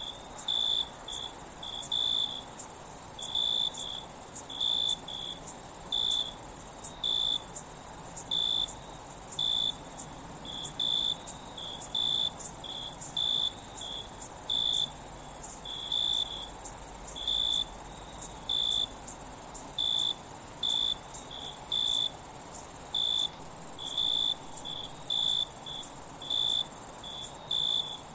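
Night insect chorus: crickets giving short, repeated chirps about one to two a second over a continuous high-pitched insect trill.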